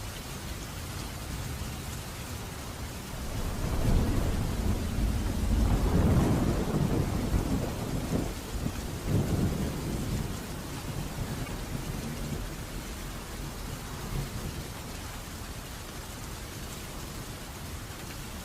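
Steady rain falling, with a roll of thunder rumbling in about three seconds in, peaking over the next few seconds and dying away by the middle.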